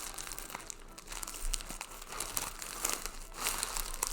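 Plastic packaging crinkling and rustling in short, irregular bursts as it is handled and worked open.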